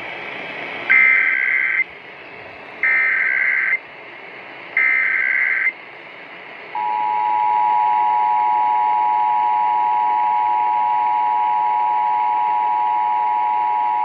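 Emergency Alert System test heard over AM radio through a small Sony boombox speaker. First come three short bursts of the SAME digital header data tones, about a second each and about two seconds apart. Then, from about seven seconds in, the steady two-tone EAS attention signal sounds.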